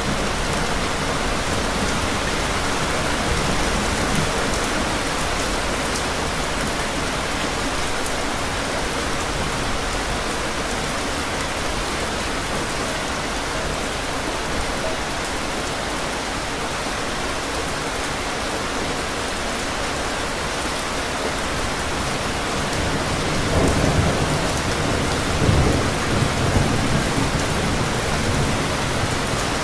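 Steady rain falling, a continuous hiss of drops on hard surfaces. About three-quarters of the way through, a low rumble of thunder rolls in and swells twice before fading back under the rain.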